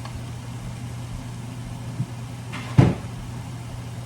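Two knocks in a kitchen, a light one about two seconds in and a louder one near the three-second mark, over a steady low hum.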